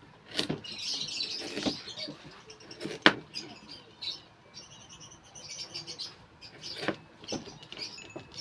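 Lovebirds chirping repeatedly in shrill, short calls, with several sharp knocks among them, the loudest about three seconds in.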